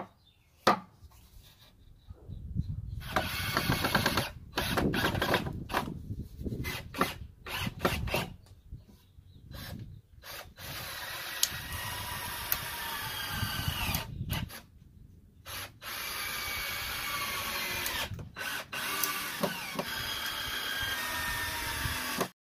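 Cordless drill driving screws through pine 2x4 seat slats into a chair frame, running in several long steady spells whose pitch rises as it speeds up. Near the start there are wooden knocks as the boards are set in place.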